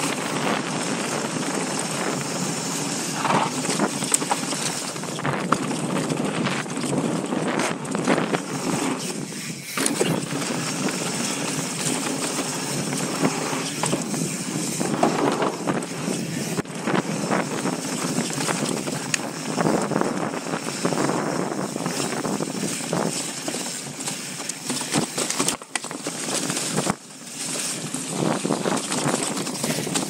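Mountain bike riding fast down a dirt trail: steady rumble of tyres over dirt and rocks with the bike rattling and knocking over bumps.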